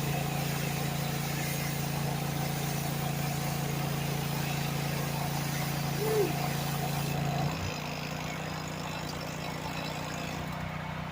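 A small engine running steadily with an even drone; about seven and a half seconds in it drops a little in level and its pitch shifts slightly.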